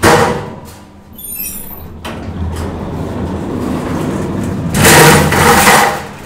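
Schindler 2400 hydraulic elevator at arrival: a short loud sound right at the start, then the stainless steel car doors sliding open from about two seconds in, with a louder noisy stretch around five seconds in.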